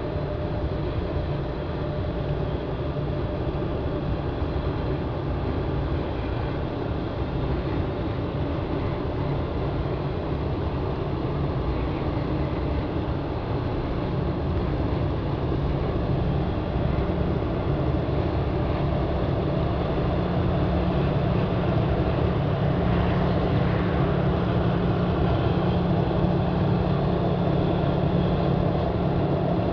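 Pusher tug's diesel engine running steadily with a low hum as it pushes a barge convoy, getting slightly louder in the last third.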